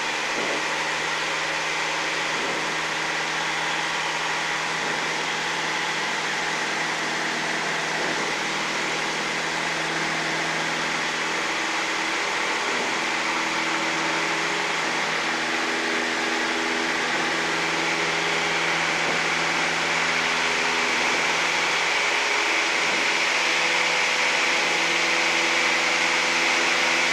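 Single-engine light airplane's piston engine running steadily, heard inside the cabin, with a wide even hiss over the engine's steady drone, growing slightly louder in the last third.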